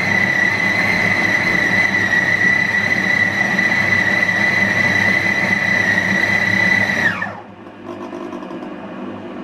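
Compact Cook Elite cooking robot's motor running with a steady high whine over a mechanical rush. About seven seconds in it winds down, its pitch falling quickly, and leaves a quieter low hum.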